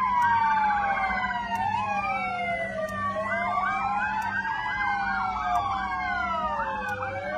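Several emergency-vehicle sirens sounding together, overlapping: slow wails rising and falling, with stretches of fast yelping warble.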